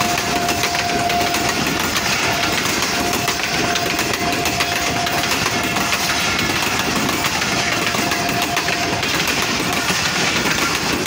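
Passenger coaches of an express train rolling past at speed on a through run: a loud steady rush of steel wheels on rail with rapid rattling clicks, and a thin steady whine that comes and goes over it until near the end.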